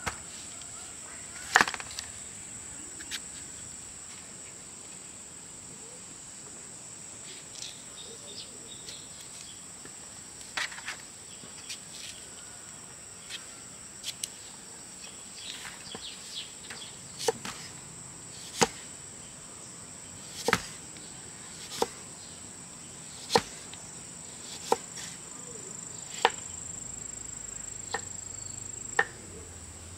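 Insects chirring steadily in one high, continuous tone, with sharp knocks every second or two through the second half.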